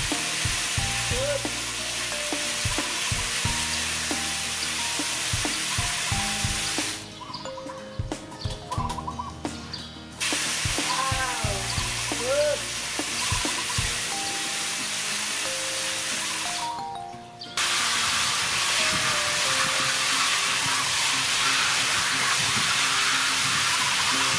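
Fine water spray from a PVC pipe nozzle hissing steadily into an aluminium basin, with hands splashing in it, over background music. The hiss drops out for about three seconds a third of the way in and again briefly later.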